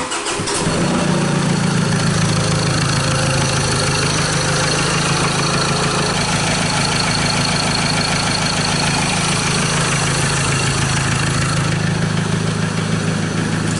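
Mazda BT-50's 2.2-litre four-cylinder diesel engine starting up and settling at once into a steady idle. The customer complains that this engine sounds really loud, with a knock.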